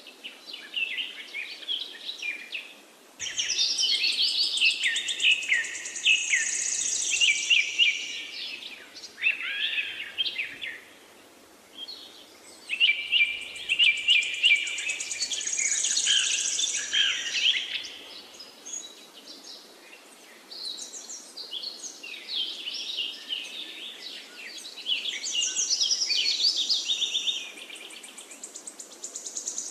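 Birdsong: several birds chirping and trilling in overlapping phrases of a few seconds each, with short lulls between them.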